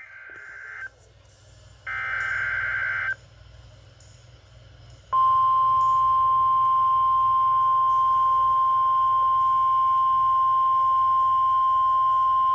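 NOAA Weather Radio Emergency Alert System signal: two short buzzy bursts of SAME header data, then a pause, then the steady 1050 Hz alert tone starting about five seconds in and held unbroken.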